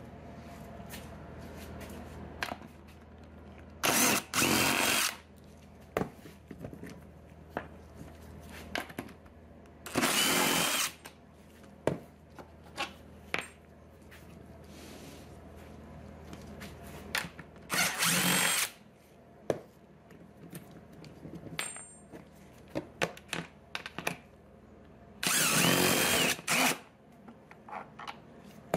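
DeWalt cordless impact driver backing out the 3/8-inch bolts of a golf-cart seat's hip-restraint bracket: four short bursts of about a second each, several seconds apart, with small clicks and clatter of bolts and the tool being handled in between.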